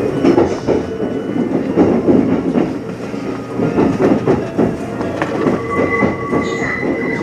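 Interior running noise of a Kintetsu 50000-series Shimakaze train heard from the front observation seat: a steady rumble with irregular clicks and knocks from the wheels and track. A steady high tone comes in about five seconds in and holds to the end.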